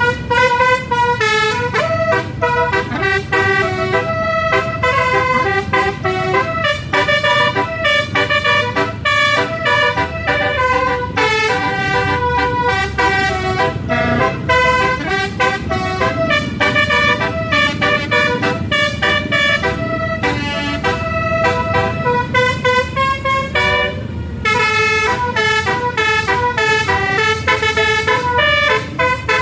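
Basuri telolet bus horns playing a fast melody, note after note in quick steps, over the low rumble of the bus engines.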